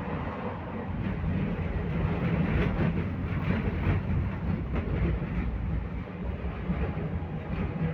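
BKM 60102 tram running between stops, heard from inside the car: a steady rumble of wheels on the rails under a low hum, with a few light clacks in the middle.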